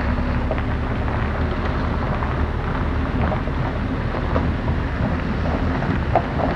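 Pickup truck driving slowly, heard from its open bed: a steady low engine and road rumble with wind buffeting the microphone. A small knock near the end.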